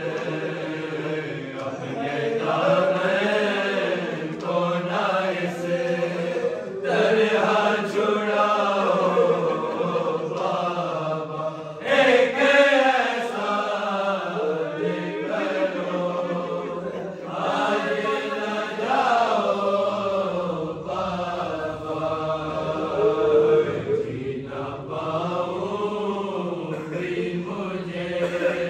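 A group of men's voices chanting an Urdu noha, a Shia mourning lament for the martyrdom of Imam Ali, in long wavering melodic lines.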